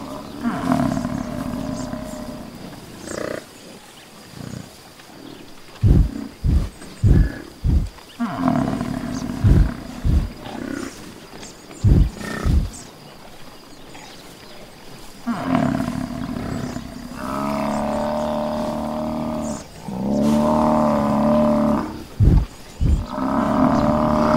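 Cape buffalo calling: drawn-out bellows, then a run of short deep grunts in the middle, then longer bellows that run almost without a break toward the end.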